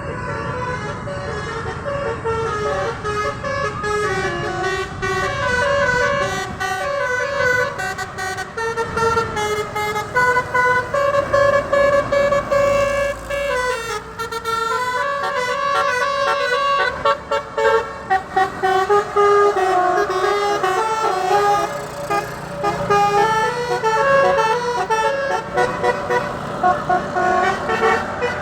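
A bus's 'basuri' telolet musical air horn playing a long melody of short stepping notes, over a low engine rumble.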